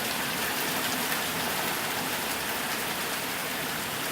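Heavy rain falling steadily in big drops, a dense even hiss of rain hitting surfaces.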